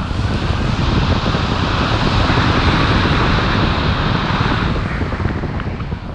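Wind rushing and buffeting over an action camera's microphone from the airflow of a tandem paraglider in flight, easing a little near the end.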